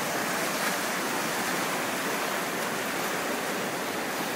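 Whitewater rapids rushing steadily: an even, unbroken noise of churning water.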